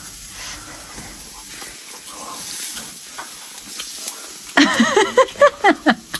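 Steady sizzle of small intestine pieces cooking on a grill. A voice comes in about four and a half seconds in.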